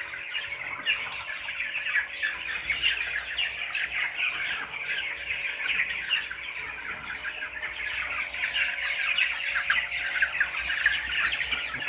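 A large flock of 20-day-old broiler chickens chirping and clucking continuously in the poultry house, many birds at once, over a faint steady hum.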